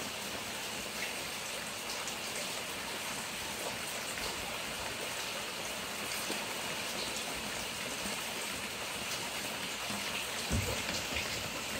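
Steady rain falling on a garden, a continuous patter of drops with faint individual taps. A brief low rumble comes near the end.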